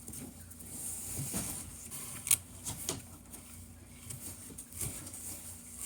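Quiet handling of small bike parts and hardware, giving a few separate light clicks and knocks.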